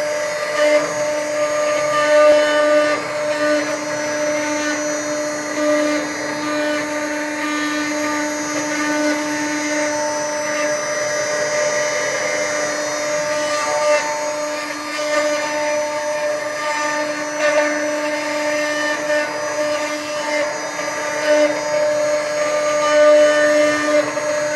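CNC wood router spindle running at speed and cutting a wooden newel post: a steady high-pitched whine with overtones, under cutting noise that swells and eases slightly as the bit moves through the wood.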